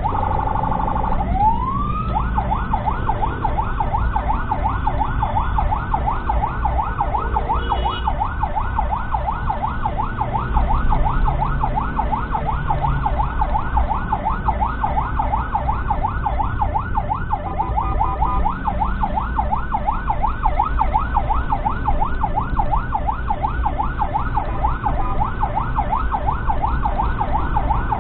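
Ambulance siren on a fast yelp, rapid repeating up-and-down sweeps over a steady low engine and road rumble. Near the start a steady tone and one rising wail break in before the yelp resumes, and a short steady tone cuts in again just past the middle.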